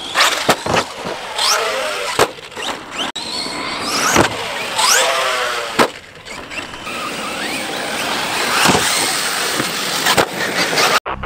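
Electric RC trucks' motors whining, rising and falling in pitch as they accelerate, hit jumps and fly, with several sharp knocks as they land on the dirt.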